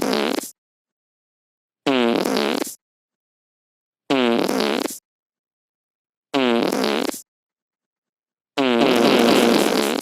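A pitched fart sound effect repeated about every two seconds, each one under a second long with silence between. The last one, near the end, is longer and thicker.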